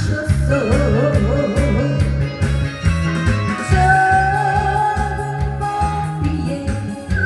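A woman singing a trot song into a microphone over a loud backing track with a steady bass beat, her voice wavering early on and holding long notes about halfway through.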